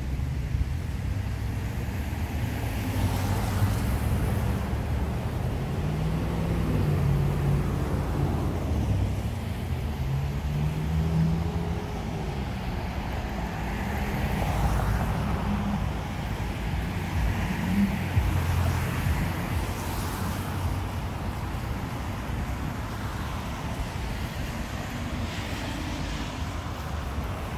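Road traffic going by: cars swishing past on a wet street every few seconds over a steady low rumble, with a vehicle's engine drone rising and falling in pitch partway through.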